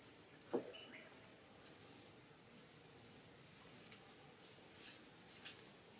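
Quiet natural ambience of faint bird chirps and insect calls, with one short, sharp louder sound about half a second in.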